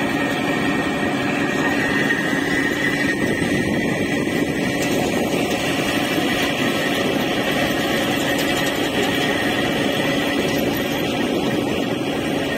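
Steady drone of a river ferry's engine running underway, a constant hum with no change in pitch.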